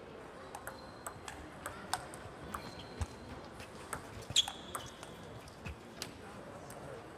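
A table tennis rally: the celluloid ball clicks irregularly off the bats and the table, about two or three times a second. A short high squeak joins the loudest click a little past four seconds in, likely a sneaker on the sports floor.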